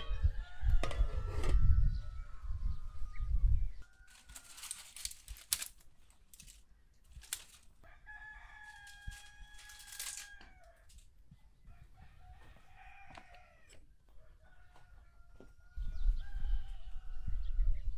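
Roosters crowing several times. Each crow is a long held call, and some are fainter than others. A loud low rumble fills the first few seconds and comes back near the end.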